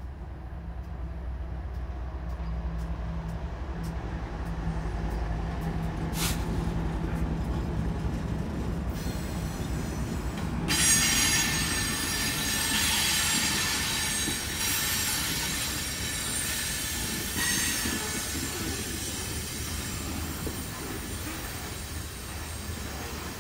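A train passing. A diesel locomotive's low engine drone is heard in the first several seconds. About ten seconds in, steady high-pitched squealing of steel wheels on the rails starts and runs on as the cars roll by.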